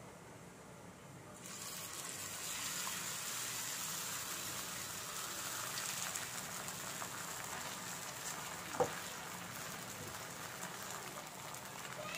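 Egg-and-bread omelet mixture sizzling on a hot iron tawa, starting suddenly about a second and a half in as it hits the pan, then a steady sizzle. A single brief sharp sound near nine seconds in.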